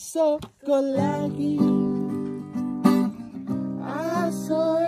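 Acoustic guitar strummed in chords with a voice singing along. The strumming breaks off briefly about half a second in, then carries on.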